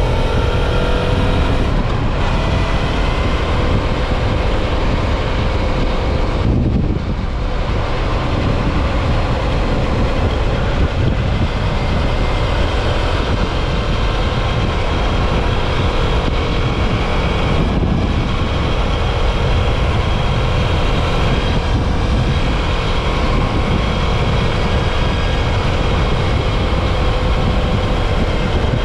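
Suzuki V-Strom 650 XT motorcycle riding at a steady road speed: loud, steady wind rush with the 645 cc V-twin engine running underneath.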